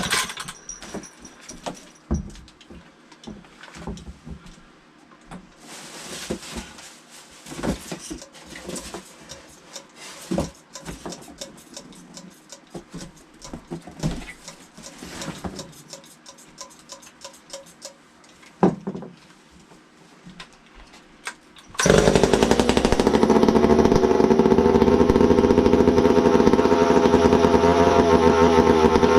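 Scattered knocks and clattering as a McCulloch Pro Mac 1010 two-stroke chainsaw is handled and pulled over. About twenty-two seconds in, the engine fires and keeps running steadily and loudly.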